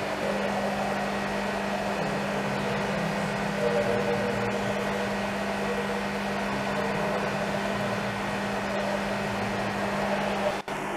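Steady mechanical hum with a constant low tone over an even whooshing noise, like the pumps, filters or ventilation of an aquarium hall. The sound drops out briefly near the end.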